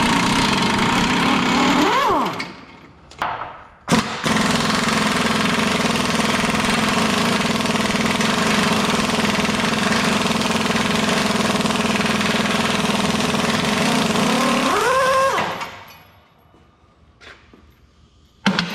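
Pneumatic impact wrench hammering on a bolt of a planter row unit's parallel arm. A burst of about two seconds comes first, then two short blips, then one long run of about eleven seconds whose pitch rises just before it stops.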